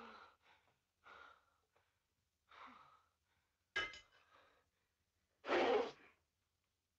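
Two people struggling at a table: short panting breaths and grunts, a sharp smack about four seconds in, then a louder hissing burst at about five and a half seconds.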